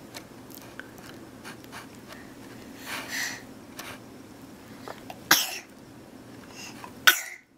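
A baby sneezing: two short, sharp sneezes about two seconds apart, the first a little over five seconds in and the second near the end, with a softer breathy sound around three seconds in.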